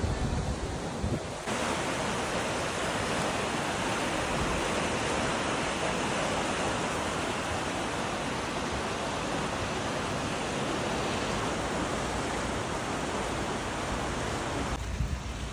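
A steady, even rush of flowing water that cuts in about a second and a half in and cuts off abruptly near the end.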